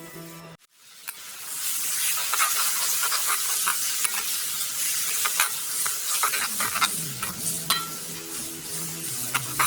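Food frying in a pan, a steady sizzle that starts about a second in, with sharp clicks of a utensil stirring against the pan.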